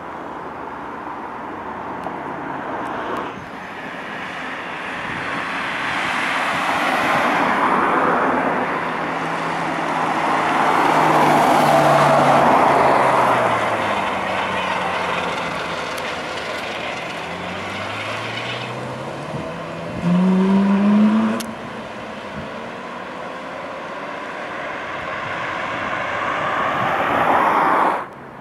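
Ferrari 458 and other supercar engines accelerating past, the revs rising and falling as the cars pull away. A short, loud burst of rising revs comes about two-thirds of the way in.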